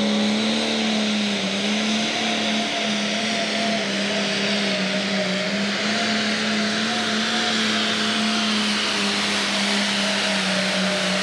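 Turbocharged diesel engine of a Pro Stock pulling tractor running flat out under full load as it pulls the sled. The engine note is steady, with a faint high whine that slowly falls in pitch.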